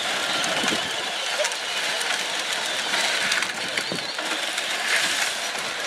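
Battery-powered Power Wheels ride-on toy cars whirring and knocking into one another, over a steady hubbub of onlookers.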